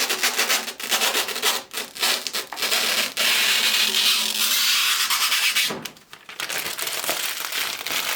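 Protective plastic film being peeled slowly off an acrylic PC-case side panel: a rasping, crackling hiss, in short pulls at first, then one long unbroken stretch that breaks off briefly about six seconds in before the peeling resumes.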